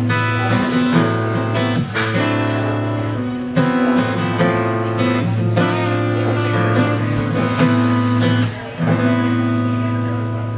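Acoustic guitar strummed in sustained, ringing chords with no singing: the instrumental outro of a song.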